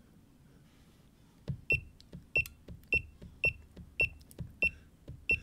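Button presses on a FNIRSI 2C23T handheld oscilloscope, each giving a short high key beep with a click, seven in a row about 0.6 s apart, starting about a second and a half in. The vertical sensitivity is being stepped down from 5 V to 200 mV per division.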